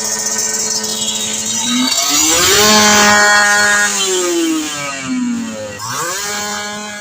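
Kawasaki Ninja 150 R/RR's two-stroke single-cylinder engine running through an aftermarket racing exhaust. It starts at a steady fast idle, is revved up about two seconds in and held there briefly, then drops back. It is blipped up again about six seconds in and eases off near the end.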